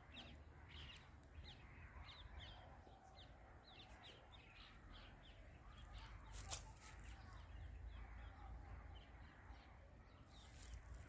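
Faint bird calls: many short, falling chirps, a couple a second, over a low outdoor rumble, with one sharp click about six and a half seconds in.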